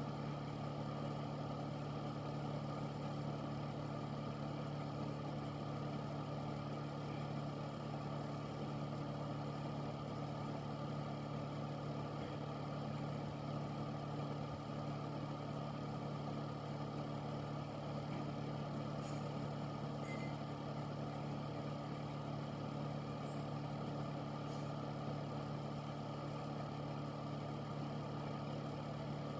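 Air filter fan running steadily: a constant hum under an even rush of air.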